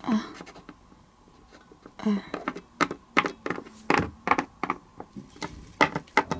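Light taps, about three a second, from about two seconds in: a plastic Littlest Pet Shop figure tapped along a surface as footsteps. Two short murmured 'hm' sounds from a voice come first.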